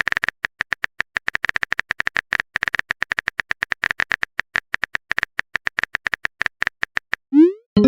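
Rapid, irregular phone-keyboard tapping clicks, several a second, the typing sound effect of a text message being written.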